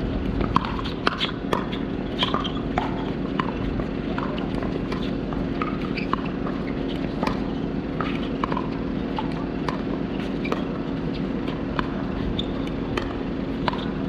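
Pickleball paddles striking the hard plastic ball: sharp pops at an irregular pace, sometimes several a second, over a steady low hum.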